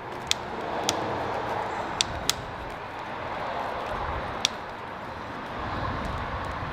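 Handling and rustling noise with about five sharp clicks, two close together about two seconds in, as the electric dirt bike's wiring connectors are worked into place.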